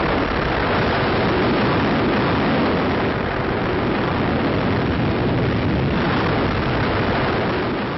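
Thor rocket lifting off: a loud, steady rushing roar of rocket engine exhaust that begins to fade near the end.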